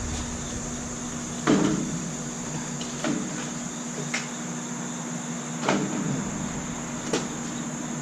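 Five short knocks and clatters of parts and tools being handled, spaced about a second or so apart, over a steady background hum.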